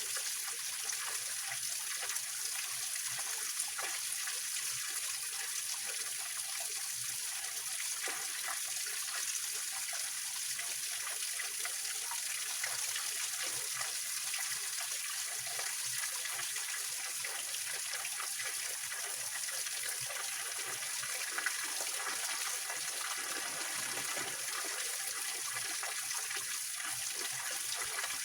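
Small mountain-spring waterfall and stream splashing steadily over rocks, an even rushing trickle of water.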